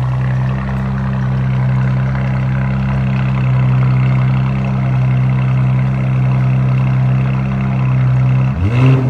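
Audi RS5's twin-turbo V6 idling steadily through a newly fitted AWE cat-back exhaust, then a quick rev blip near the end, its pitch rising and falling back.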